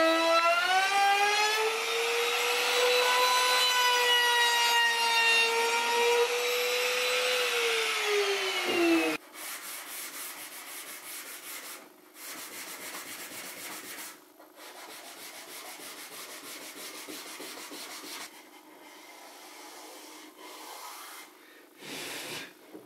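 Compact trim router cutting a profile along the edge of a chestnut board, its whine dipping and rising with the load, then winding down about nine seconds in. After that, sandpaper rubbed by hand along the routed moulding in several spells of strokes, much quieter than the router.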